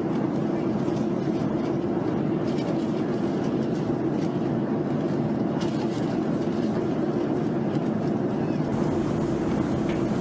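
Loud, muffled, steady rumbling noise, strongest in the low-middle range, with no distinct events: the ambient noise on a screen-recorded UFO video, which could be jet cockpit noise or the ambient noise of a ship where the screen was recorded. Near the end it carries on much the same, a little brighter.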